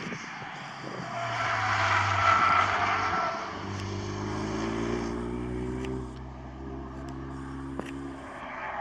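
Renault Mégane RS hatchback's engine and tyres as the car is driven hard through a corner. It is loudest about two seconds in as it passes, then a steady engine note carries on as it pulls away, quieter from about six seconds in.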